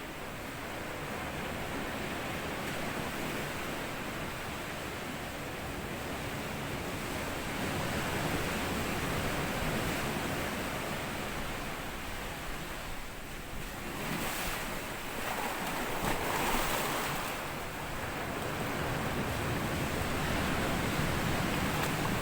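Sea waves breaking and washing up a sand beach: a continuous rushing wash that swells and ebbs, with a louder surge of breaking water about two-thirds of the way through.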